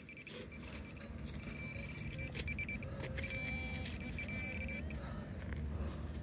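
Metal-detecting pinpointer giving its high steady alert tone as it is probed into the dug soil plug, held for about a second near the start and again for about two seconds in the middle: the target is in the plug. A low rumble runs underneath and grows louder.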